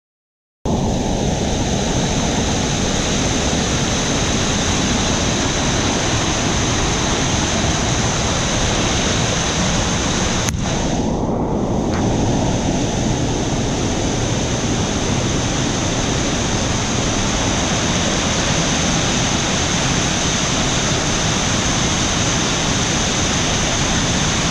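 Flash-flooded jungle stream rushing over a small cascade: a loud, steady rush of muddy floodwater that starts abruptly under a second in. About ten seconds in there is a single sharp knock, and the rush sounds briefly muffled after it.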